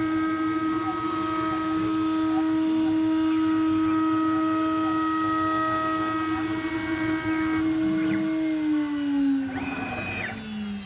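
CNC router spindle running with a steady high whine as it cuts a groove in wood; about eight seconds in, the pitch starts to fall as the spindle winds down, with a brief scraping burst near the end.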